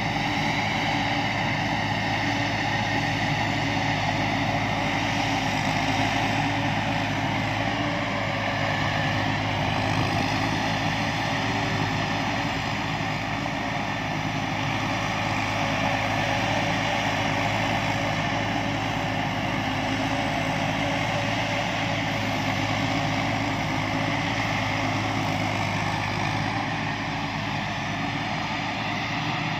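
Rice combine harvester running steadily, a continuous engine drone with a strong low hum and machinery noise above it.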